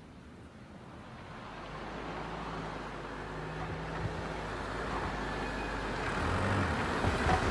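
Rushing noise swelling steadily louder and brighter, with a faint low hum under it: the opening build of a pop song, before the chords come in.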